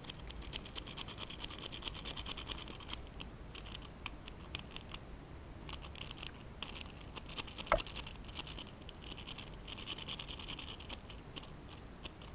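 Homemade monserrate-style rake scraping in and out of an ABUS 83MAR/45 six-pin padlock's keyway: a fast, continuous run of light metallic scratching and clicking as the rake drags over the pin stack. One sharper click stands out about eight seconds in.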